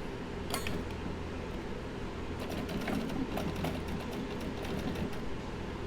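Light clicks and rattles from the metal top cover of a 1952 Royal HH manual typewriter being lifted open and handled, over a steady low hum.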